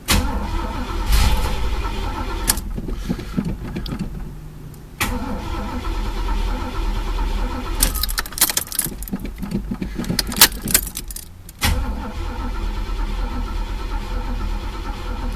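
Chevrolet El Camino engine being cranked on the starter in three long goes with short pauses between, turning over without catching. It won't fire because no fuel is reaching the carburetor.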